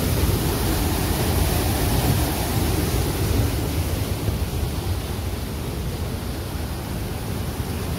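Canal water rushing steadily through the open sluice gates of a canal regulator. It is a little lower in the second half.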